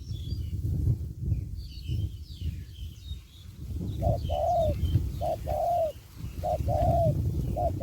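Spotted dove cooing: from about halfway, four repeated two-part coos, each a short note then a longer arched one. Small birds chirp faintly in the first half, over a steady low rumble.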